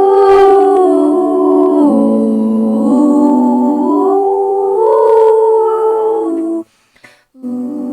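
Sustained humming-like musical tones, several pitches sounding at once and shifting up and down in steps. They cut off about six and a half seconds in and start again under a second later.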